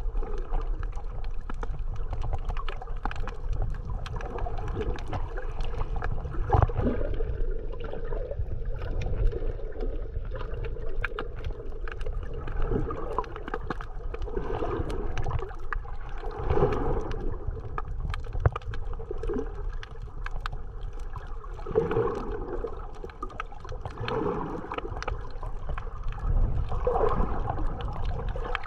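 Muffled sound of seawater recorded underwater: a steady low rumble with gurgling swells every few seconds and many faint scattered clicks, over a faint steady hum.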